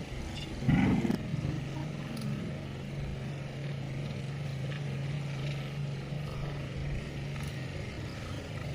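A steady engine hum at one low pitch, fading out about seven seconds in, after a short loud sound about a second in.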